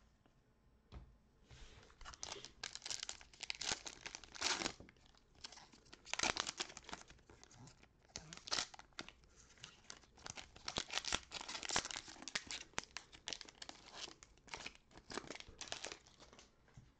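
A 2021 Donruss football card pack's foil wrapper being torn open and crinkled by hand, in a long run of uneven rustling and tearing bursts, with the cards handled as they come out near the end.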